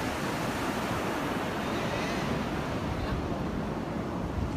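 Steady wash of sea surf with wind rumbling on the microphone.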